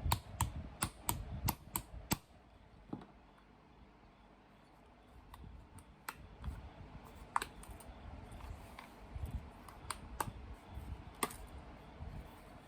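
A quick run of sharp taps, about seven in the first two seconds, then a quieter stretch and scattered single taps.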